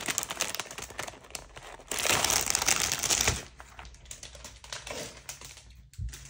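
Clear plastic wrapping around a cross-stitch kit's floss palettes crinkling as it is handled, loudest about two to three seconds in. Then quieter scattered clicks, and a low thump near the end.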